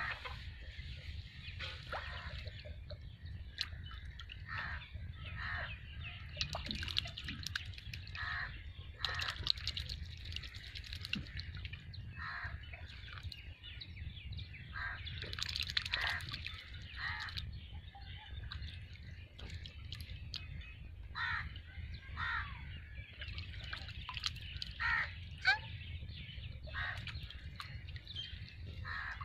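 Short, harsh bird calls repeating every second or two over a low steady rumble, with a few brief splashy stretches of ducks dabbling in shallow muddy water.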